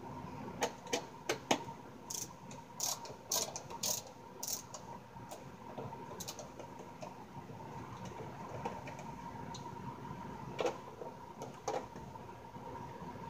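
Hand screwdriver working at the screws in the back panel of a Yamaha THR10 guitar amplifier, the screws slow to loosen. It makes a quick run of sharp clicks and ticks over the first few seconds, then two more clicks near the end.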